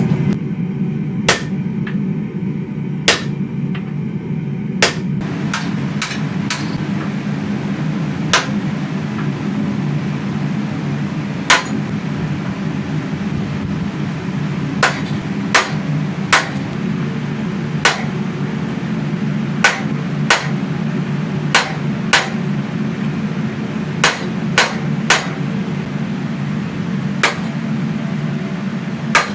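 Hand hammer blows on a sledgehammer head being forged on an anvil, about twenty single strikes at an irregular pace. A steady low hum runs underneath.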